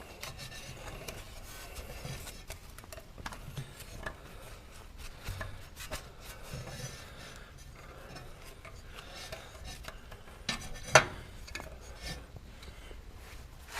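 Small brush scrubbing and scraping at dirt on lawn tractor engine parts, a fairly quiet, irregular scratching, with one sharp knock about eleven seconds in.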